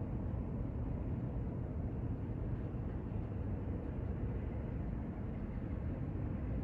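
Steady outdoor ambient noise: an even low rumble with no distinct sounds standing out.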